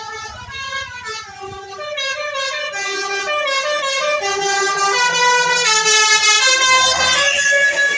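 Basuri telolet bus horn playing a multi-tone tune, its notes stepping up and down a few times a second and getting louder partway through.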